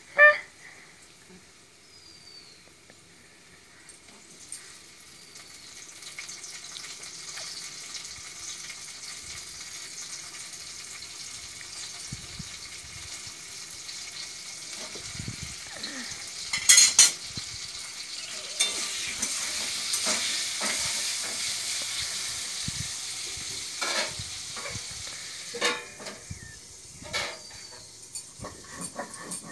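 A steady sizzling hiss, like food frying in a pan, builds up over the first few seconds, is strongest past the middle and eases off near the end. A few short sharp knocks come through it.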